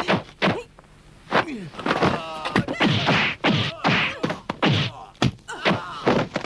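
Kung fu film fight sound effects: a fast run of about a dozen punch and kick hits and whooshes, with a short pained cry about two seconds in.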